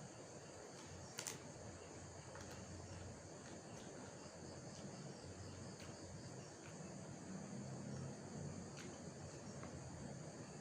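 Crickets chirring steadily in the background, with a few faint clicks and one sharper click about a second in.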